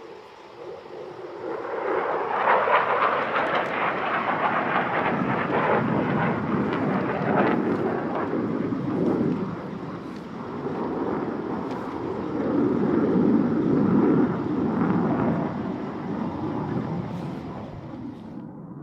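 F-16 fighter jet flying past: a loud jet roar that swells over the first two seconds, rises and falls twice as the aircraft manoeuvres, then fades and cuts off near the end.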